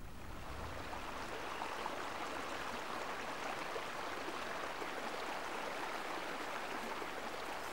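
Mountain stream running water, a steady rush that comes up in the first second and holds.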